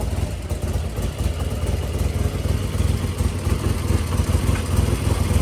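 Vintage British motorcycle engine idling steadily through its new stock mufflers, running smoothly.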